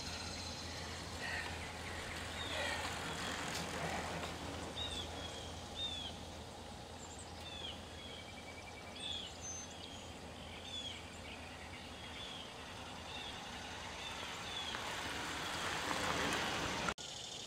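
Small birds chirping repeatedly, short hooked calls, over a low steady hum. Near the end a rushing noise swells, then cuts off abruptly.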